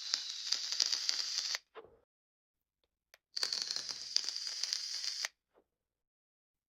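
Vape draws: an e-cigarette hissing and crackling as a breath is pulled through it. One draw stops about a second and a half in, and a second, about two seconds long, comes near the middle.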